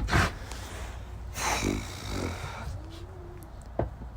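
Sow in labour breathing hard as she strains, with a rough, noisy breath and a short grunt about one and a half seconds in, and a faint brief higher-pitched sound near the end.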